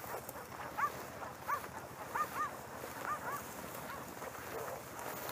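Hunting dogs barking in the distance: a string of short, high barks, some in quick pairs, over the swish of people walking through tall dry grass.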